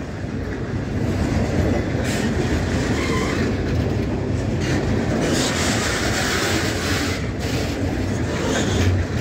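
Freight train of steel-coil flat wagons rolling past at close range: a steady, loud rumble of steel wheels running on the rails.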